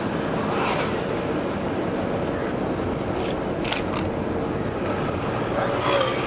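Car driving on a town road heard from inside the cabin: steady engine and road noise, with a sharp knock about three and a half seconds in and a brief pitched sound near the end.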